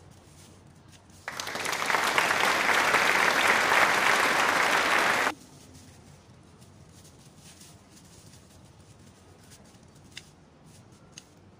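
A recorded applause sound effect, about four seconds of dense clapping that starts abruptly and cuts off sharply. Before and after it there are only a few faint clicks of a metal spoon scraping aloe vera leaves.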